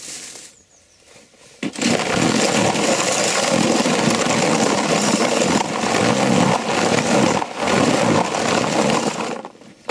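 Cordless drill with a mixer paddle churning dry carp groundbait and pellets in a plastic bucket. It starts about two seconds in, runs steadily with a brief dip near the three-quarter mark, and stops just before the end.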